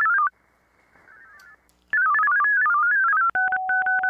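VARA-HF digital modem signals heard over an HF transceiver: short bursts of warbling tones that step rapidly up and down, with receiver hiss between them. Near the end a tone starts switching on and off over a steady lower tone as the radio link is being disconnected.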